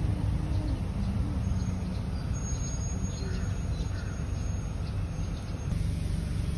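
A vehicle engine running with a low rumble that eases in the middle and picks up again near the end, with faint bird chirps in the middle.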